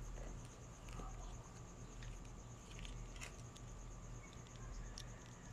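Crickets trilling steadily, a fast even pulsing, over a low steady hum, with a few faint clicks.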